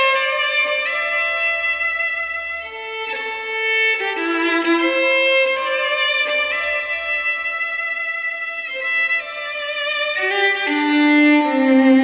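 Solo fiddle playing a slow Scottish tune with long, smoothly bowed notes, ornamented with grace notes and swelling and easing in loudness. Near the end the melody drops to low notes on the bottom strings, and the notes ring on in the small stone church.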